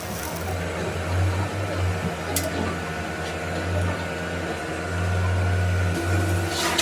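A machine's motor running with a steady low hum, with a click about two and a half seconds in and a sharper knock near the end.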